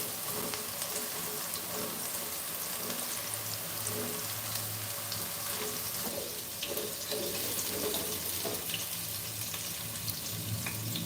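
Pork pieces sizzling and crackling steadily as they fry in hot oil in a pan.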